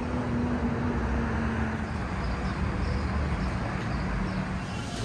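Street traffic noise: a steady rush of passing vehicles, with an engine's hum that drops slightly in pitch about two seconds in.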